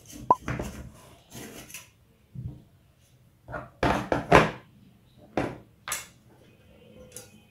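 Metal springform cake tin being handled to release a cake: a sharp metallic click about a third of a second in as the clasp springs open, then scrapes and knocks of a knife and the tin, loudest about four seconds in, with two more short clacks soon after.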